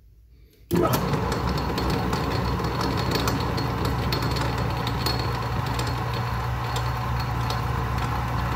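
Small metal lathe switched on about a second in and then running steadily, its motor humming, with a scatter of light ticks over the hum as the chuck spins.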